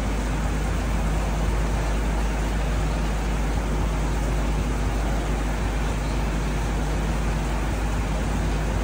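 Steady noise of running shop equipment: a constant hiss with a low hum underneath, unchanging throughout.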